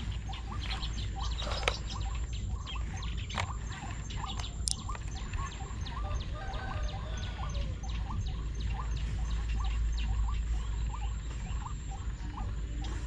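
Short chirping calls repeating about three times a second, over a low wind rumble on the microphone.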